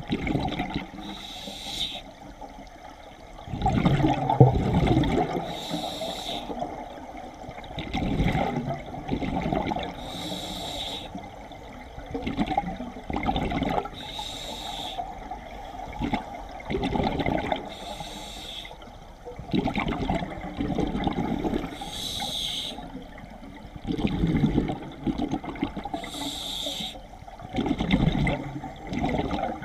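Scuba diver breathing through a regulator underwater: a short hissing inhale, then a louder gush of bubbling exhaust. The cycle repeats about every four seconds, seven breaths in all.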